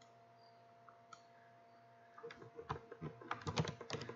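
Typing on a computer keyboard: a single click about a second in, then a quick run of keystrokes from about halfway through.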